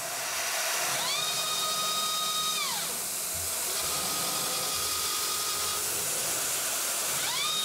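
CNC mill spindle, driven by a new motor on a variable frequency drive, rigid tapping M8 threads into aluminum with a spiral-flute bottoming tap. The motor whine rises in pitch, holds for about a second and a half, then falls away as the spindle stops to reverse out of the hole. A fainter steady whine follows, and near the end the whine rises again for the next hole, all over a steady hiss.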